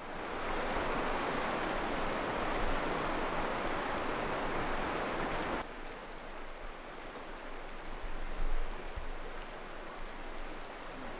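Rushing river water, a steady hiss, which drops suddenly to a quieter level about halfway through and carries on.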